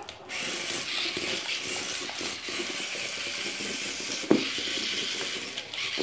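Remote-control toy tarantula's small geared motor whirring with a ratcheting clatter as it walks, starting just after the beginning. A single sharp knock about four seconds in.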